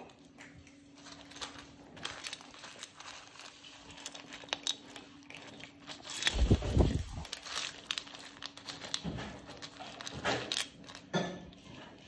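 Cockatoos crunching dry cat kibble with their beaks in a steel bowl: a run of small crackling clicks and crunches. About six seconds in there is a brief, louder low noise.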